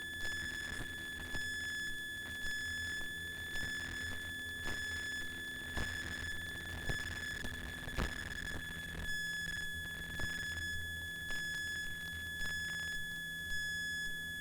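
Steady electrical whine and low hum on a light aircraft's intercom audio, with a higher tone switching on and off and soft clicks, each about once a second.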